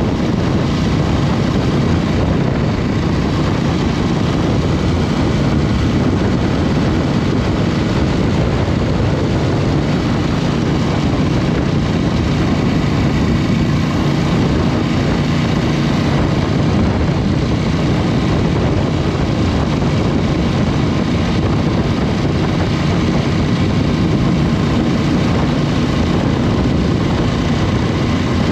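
Aprilia RS 660's parallel-twin engine running at a fairly steady pitch under way, mixed with a steady rush of noise, with no big revs or gear changes.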